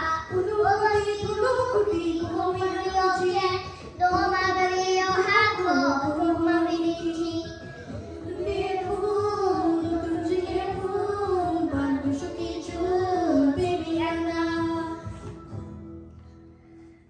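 A girl singing into a handheld microphone, holding long notes with a slight waver. The singing fades out near the end.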